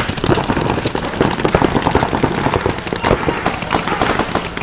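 Rapid, continuous cracking and popping, many sharp reports a second, like bursts of gunfire.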